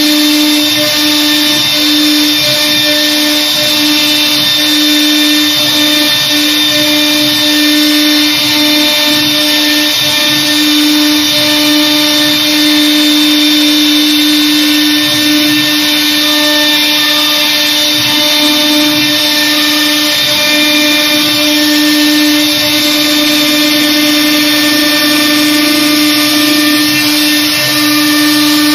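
A 1325 CNC router's spindle runs with a steady whine, routing grooves into a wood door panel, with the constant hiss of the bit cutting beneath it.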